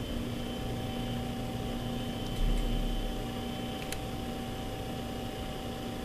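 Steady hiss with a constant electrical hum. A brief low thump comes about two and a half seconds in, and a faint click just before four seconds.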